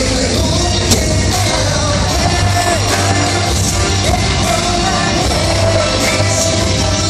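Loud live K-pop concert music over an arena sound system: a sung melody with held, gliding notes over a heavy bass beat.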